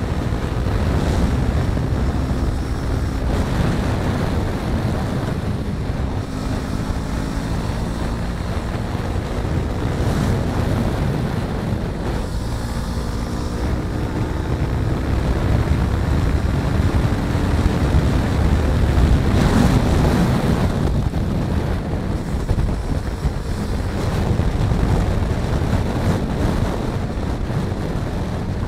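Wind buffeting the microphone over a first-generation Yamaha R3's parallel-twin engine running at road speed. The engine's pitch climbs a few times as it accelerates.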